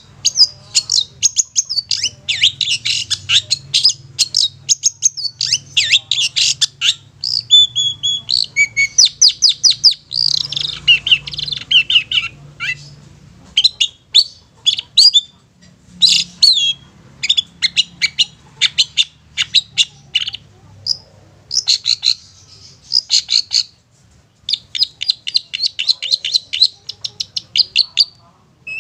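Long-tailed shrike (cendet) singing a fast chatter of short, high notes in bursts, broken by brief pauses.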